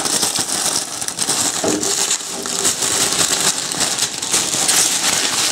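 Clear plastic bags and sheets crinkling and rustling as they are handled, a continuous crackle of many small irregular crackles.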